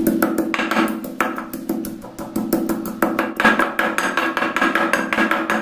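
Background music with steady held tones over repeated knocks of a wooden pestle pounding garlic and ginger into paste in a clay mortar.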